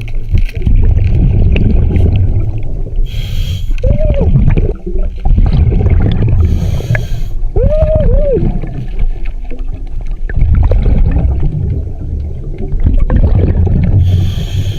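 Underwater rumble and gurgling of bubbles, broken by three short hissing inhales through a diver's breathing regulator, at about three, six and a half, and fourteen seconds in.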